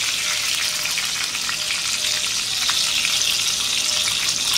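Pork belly cubes sizzling steadily in their own rendered fat, with no oil added, as they fry crisp in a stainless electric skillet, with a few small pops.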